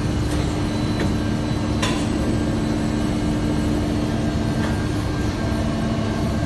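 Tunnel washer loading lift and the machinery around it running with a steady hum carrying two steady low tones, as the hopper of linen is raised. A single sharp click about two seconds in.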